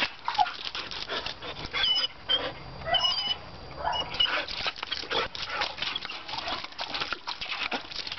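Border collie mix whining in a few high squeaks, over a dense run of quick clicks.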